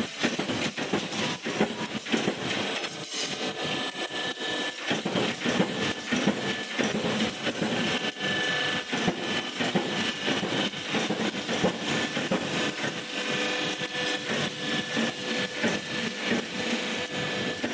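Steel stud roll forming machine running: steel strip clattering through the roller stations in a steady mechanical din, with frequent sharp clicks and knocks and a faint whine underneath.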